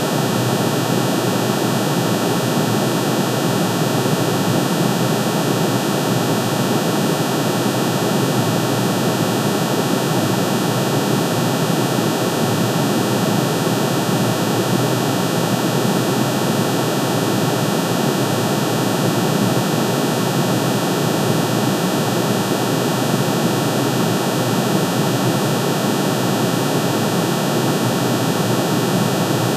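A steady synthesized drone made from the atomic emission spectrum of aluminium, with one sine wave per spectral line, all pitch-shifted into hearing range and summed. The result is a dense, unchanging hiss-like hum that spreads across the whole range from low to very high, with no low bass.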